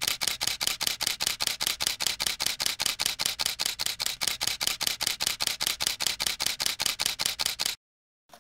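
Camera shutter sound effect clicking over and over in a fast, even rhythm of about six or seven clicks a second, then cutting off abruptly near the end.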